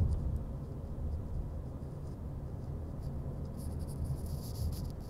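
Steady low rumble of road and engine noise heard inside a car's cabin, with a patch of faint high clicking or rustling about three and a half seconds in.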